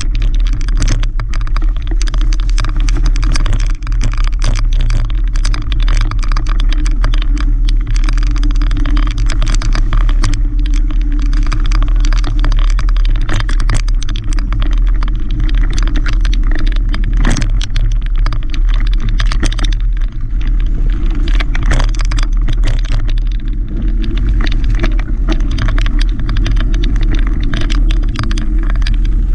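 Mountain bike riding over rough dirt singletrack: a constant low rumble of wind and vibration on the microphone, with frequent irregular clicks and rattles from the bike over the trail.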